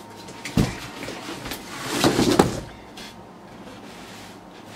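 Empty cardboard furniture box being handled and moved aside: a thump about half a second in, then about a second of cardboard scraping and rustling around two seconds in.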